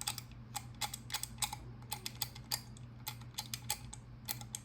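Master Lock combination key box being worked by hand: a quick, irregular run of small sharp clicks, as of its number dials being turned through their detents while the combination is reset.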